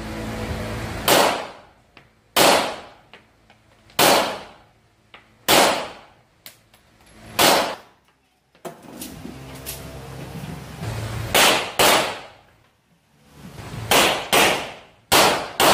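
Rock Island Armory Tac Ultra FS HC pistol firing about eleven single shots, each with a short echo off the walls of an indoor range. The first shots come a second or more apart, and near the end they come in quick pairs.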